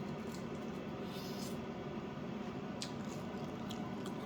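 Soft squishy sounds and a few faint clicks from a hot, freshly roasted chicken wing being handled, over a steady low hum.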